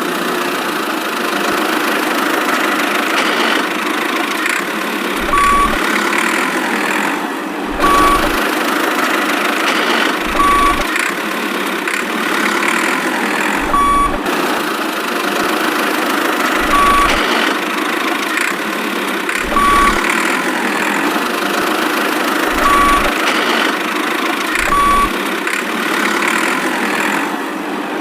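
Electronic engine sound effect from a toy vehicle's small speaker, running steadily, with a short beep roughly every three seconds.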